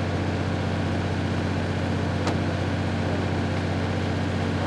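A vehicle engine running at a steady speed, a low even drone. A single sharp click comes a little past two seconds in.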